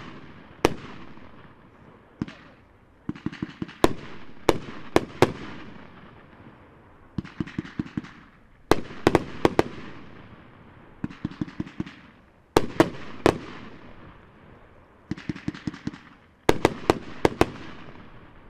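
Dominator 'Out Cold' 500 gram consumer fireworks cake firing: volleys of several sharp bangs from bursting shells, repeating about every four seconds. The last volley dies away near the end.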